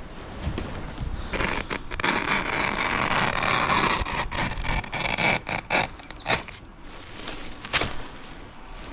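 Utility knife slicing through the backing of synthetic turf. It makes a long zipper-like ripping scrape, then a string of shorter cuts and clicks.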